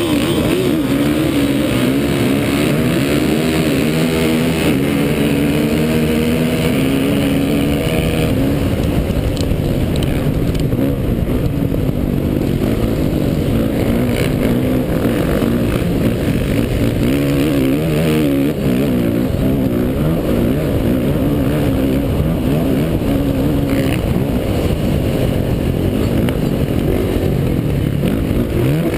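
Off-road dirt bike engine at full throttle, accelerating hard off a mass race start. Its pitch climbs and steps as it shifts up through the gears in the first several seconds, then it holds a steady high-revving run.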